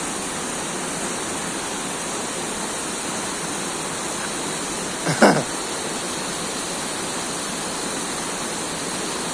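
Waterfall: a steady rush of falling water. A brief call, falling in pitch, comes about five seconds in.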